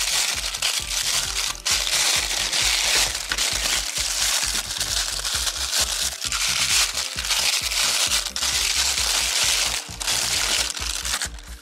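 Toy packaging crinkling and tearing as the cover over a toy boombox's speaker is ripped open, over background music with a steady beat.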